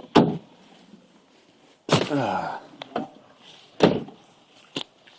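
A door being handled: a sharp thud, a short creak about two seconds in, then another thud, with a small click near the end.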